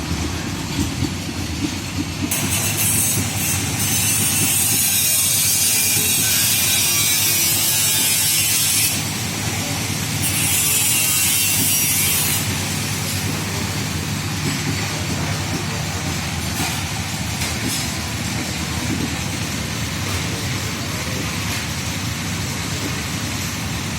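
Paint spray gun hissing in two long bursts, the first about six seconds and the second about two, over a steady low motor rumble.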